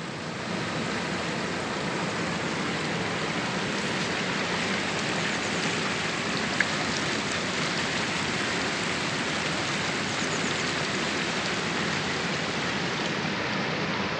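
Shallow, stony mountain river flowing and rippling over rocks and boulders: a steady wash of water noise, with one short click about six and a half seconds in.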